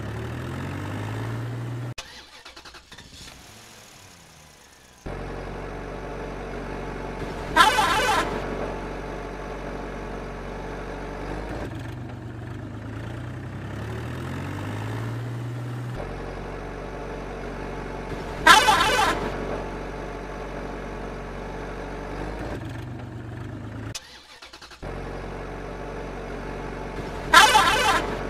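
Vehicle engine sound running steadily, with its pitch rising as it revs at the start and again about two-thirds of the way through. Three short loud blasts, about ten seconds apart, stand out above it.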